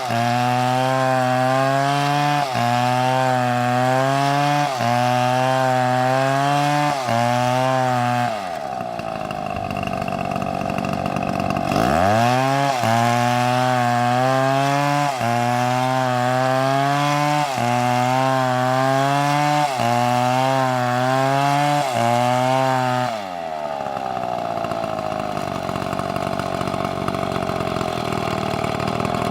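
Chainsaw engine at high revs cutting wood, its pitch wavering under load with brief dips about every two seconds. About eight seconds in the revs fall away and climb back a few seconds later. The revs fall off again about twenty-three seconds in and start rising just at the end.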